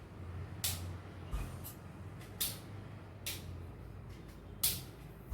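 Tripod legs being set up and their leg locks snapped shut: a series of sharp clicks and knocks, about six in all, the loudest about four and a half seconds in.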